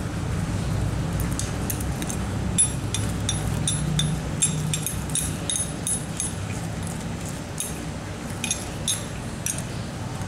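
Steel ring spanner clinking against the hex nuts of anchor bolts as they are tightened: a run of light metallic clicks and chinks in small clusters, over a steady low hum.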